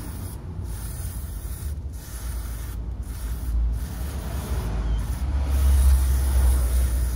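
Aerosol carb cleaner hissing in repeated short bursts into a 1.8T throttle body, with a toothbrush scrubbing the carbon gunk off the bore and butterfly valve, over a low rumble that grows louder in the second half.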